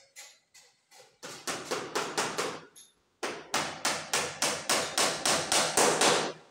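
Hand hammer striking rapidly, about four blows a second, driving nails into wooden trim at the foot of a wall panel. Six or so blows, a short pause, then about a dozen more that grow louder.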